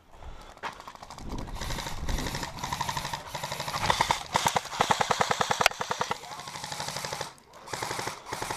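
Airsoft electric gun (AEG) firing full-auto in long strings of rapid, even clacks for about six seconds, then starting again near the end.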